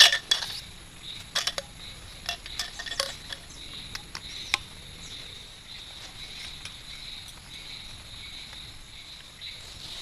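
Sections of a folding tarp pole clicking and clinking as they are unfolded and fitted together: a string of sharp clicks over the first few seconds, the loudest right at the start. A steady insect chorus runs underneath.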